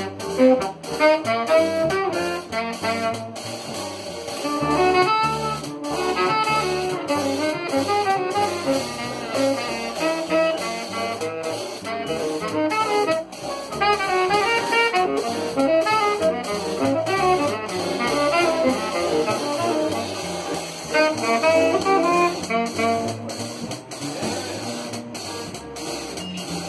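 Small jazz combo playing live, a saxophone carrying the melody over a rhythm section of upright bass, keyboard and drum kit.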